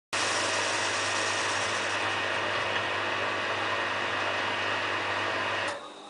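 Hotpoint Aquarius+ WMF740 front-loading washing machine running its final high-speed spin, a loud steady whirr over a low hum. The motor noise cuts off abruptly near the end as the spin ends.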